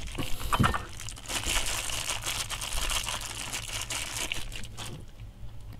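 Thin clear plastic bag crinkling in the hands as a small capsule-toy figure is unwrapped, with a few light clicks in the first second.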